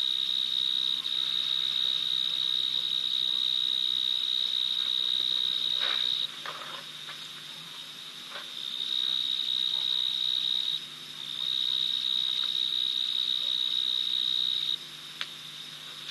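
A night insect trilling at one steady high pitch in long unbroken stretches. It stops about six seconds in, comes back a couple of seconds later with one short break, and stops again near the end. A few faint short sounds fall in the pauses.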